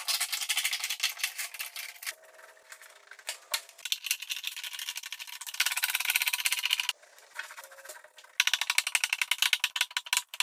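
Wooden end-grain cutting board strips and sheets being handled and slid on a glue-up table: fast, dense rattling clatter in three bursts, with quieter stretches between them.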